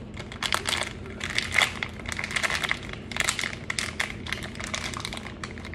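A food packet crinkling and crackling irregularly as it is handled in the hands.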